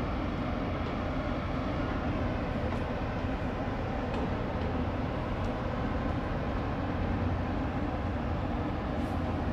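Steady low rumbling drone of the coal-carrying bulk ship's engine and machinery as it moves slowly past, with a faint constant hum in it.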